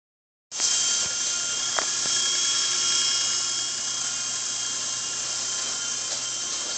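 Small remote-control toy helicopter flying, its electric motor and rotors giving a steady high-pitched whine that starts about half a second in.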